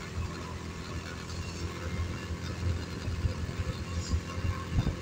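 Small motorcycle engine running steadily at low speed while riding along a road.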